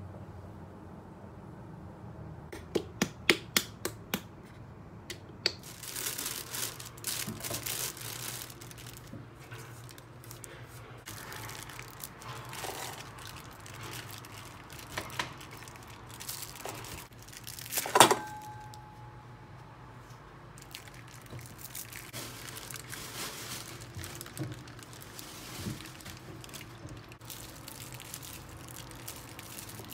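Close-up handling sounds: a quick run of light clicks as small jars and bottles are handled, then plastic packaging crinkling and tearing as food packets are opened. One sharp clink, just past halfway, rings on briefly.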